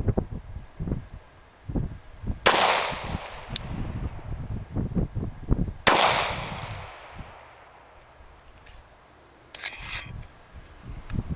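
Two 9mm shots from a Glock 17 Gen 4 pistol, about three and a half seconds apart, each trailing off in a long echo. Low handling thumps come between them, and there is a short, fainter rattle near the end.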